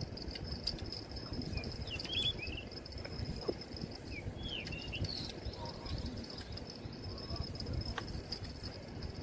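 Outdoor ambience: a steady high insect trill, with a few short chirps about two and five seconds in, over a constant low rumbling noise.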